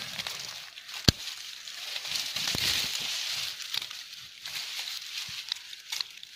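Crackling rustle of dry leaves and twigs being handled and pushed through, with a sharp snap about a second in and a few lighter clicks.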